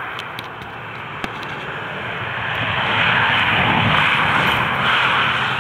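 A vehicle passing on the road, its tyre and engine noise building to its loudest about three to five seconds in, then easing away.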